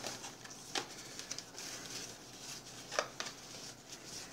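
A small paperboard takeout box being handled and opened, giving a few faint clicks and taps of cardboard, two close together about three seconds in.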